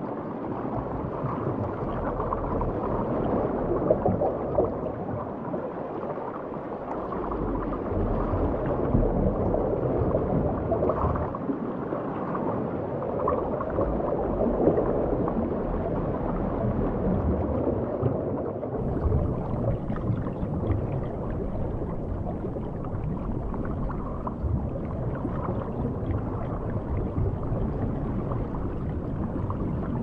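Underwater ambience on a coral reef: a steady, muffled wash and rumble of moving seawater, with faint scattered clicks.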